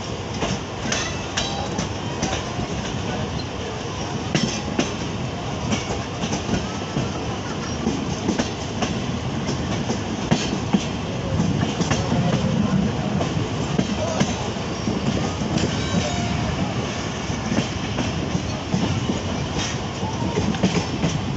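Running gear of a Pakistan Railways passenger coach at speed: a steady rumble with sharp, irregularly spaced clacks as the wheels cross rail joints and switches.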